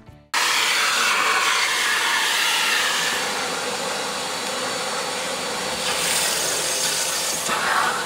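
Stihl wet and dry vacuum cleaner running, a steady rushing suction noise as the nozzle cleans the car's interior. It starts suddenly about a third of a second in, and its pitch shifts briefly near the end as the nozzle moves.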